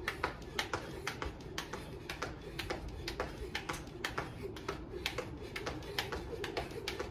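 Jump rope skipping on a concrete path: the rope slaps the ground with each jump in a steady rhythm, about three slaps a second.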